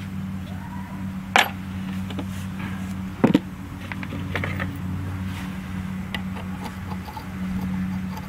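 Metal parts of a power steering pump and a pulley-installer tool being handled: two sharp clanks, about a second and a half and about three seconds in, then a run of lighter clicks, over a steady low hum.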